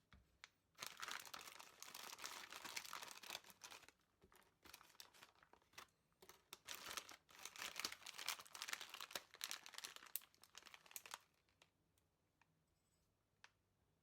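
A snack wrapper crinkling and being torn open, in irregular rustling bursts for about ten seconds, then stopping.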